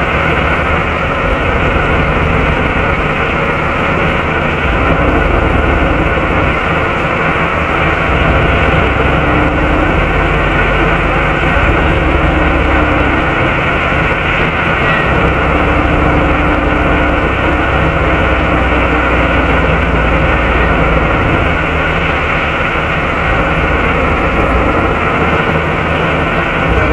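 Interior sound of a Volvo B7RLE bus (Wright Eclipse 2) under way, heard from a seat near the rear: the steady, loud noise of its engine cooling fan and diesel engine, with a low hum underneath.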